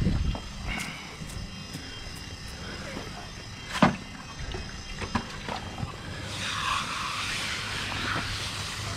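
Hand work on a freshly poured concrete mowstrip: a sharp knock about four seconds in, then a couple of seconds of wet hissing near the end as water is added and the wet concrete is worked with a steel edging trowel.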